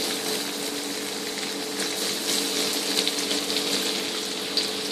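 Chopped garlic sizzling and crackling in hot oil in a wok, over a steady low hum.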